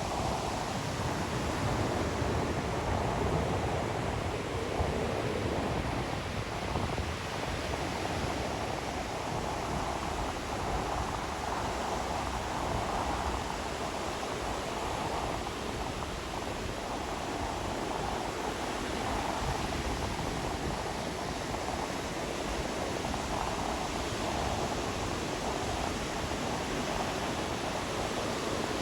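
Surf washing onto a beach: a steady rush of water with slow, gentle swells in loudness.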